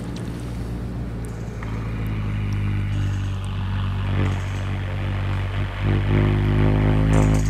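Experimental electronic soundtrack: a steady, low droning hum built of several layered tones, engine-like in character. A hissing layer comes in about a second and a half in, and higher tones join about six seconds in, with a few faint clicks scattered over it.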